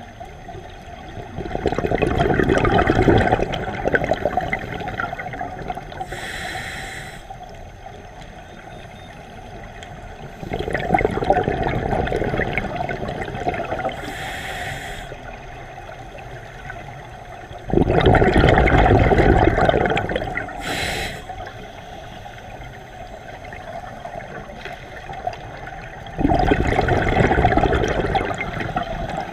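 Scuba diver breathing through a regulator underwater. Four loud bursts of exhaled bubbles come about every eight seconds, and a short hiss of the regulator on each inhale falls between them.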